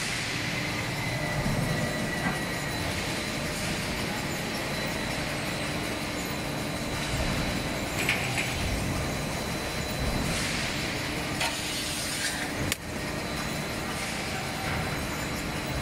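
Automatic steel-plate shearing and stacking line running: a steady mechanical rumble of the roller conveyor and vacuum-suction gantry stacker handling steel plates, with a thin steady high whine. Brief high metallic screeches come a few times in the second half, and there is a single sharp knock near the end.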